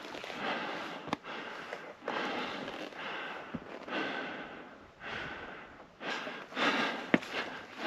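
A climber's heavy breathing from exertion on a steep ascent, close to the microphone: loud breaths about once a second, with a few sharp clicks among them.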